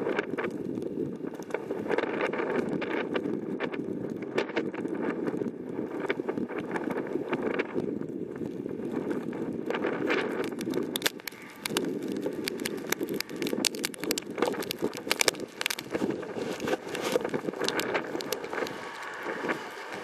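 Gusting storm wind in a snowstorm rushing over the microphone, with many sharp ticks and crackles that are thickest in the second half. The wind lulls briefly a little past halfway.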